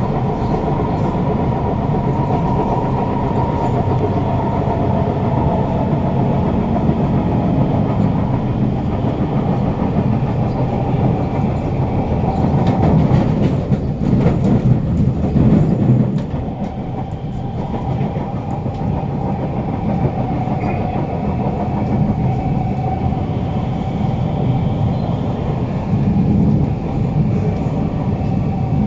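Kawasaki Heavy Industries C151 train with PMSM traction motors heard from inside the carriage while running: wheels rumbling and clacking on the rails, with steady tones above the rumble. It grows louder for a few seconds around the middle, then eases a little.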